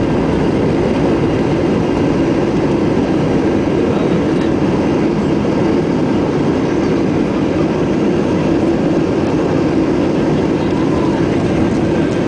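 Loud, steady roar inside the cabin of a Boeing 737-800 during landing: the engines and the rush of air.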